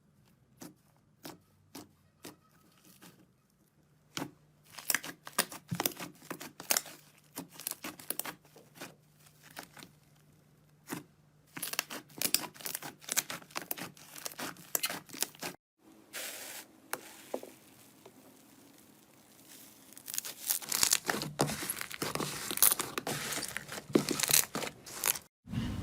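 Slime being squeezed, stretched and poked: dense runs of sharp crackling and popping clicks, sparse at first and then busier, broken by abrupt cuts between separate clips.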